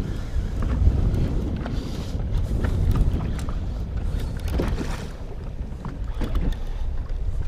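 Wind rumbling on the microphone on an open boat, with scattered splashes and knocks as a hooked pike thrashes at the boatside while it is netted.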